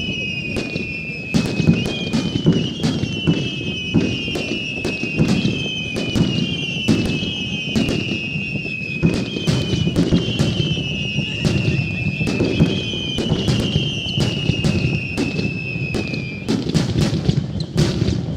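Fireworks display: a dense barrage of shell bursts with sharp bangs and crackling over a low rumble. Throughout, overlapping high whistling tones each slide slowly down in pitch for about two seconds, and stop a couple of seconds before the end.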